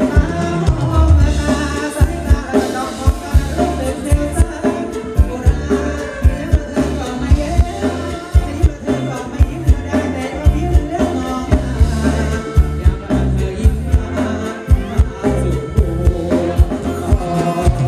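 Live Thai ramwong dance band playing through a stage PA: electric guitars, keyboard and a drum kit keeping a steady beat, with a singer singing over them.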